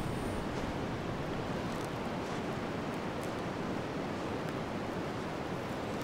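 Steady winter wind ambience: an even low rush of noise with a few faint light ticks.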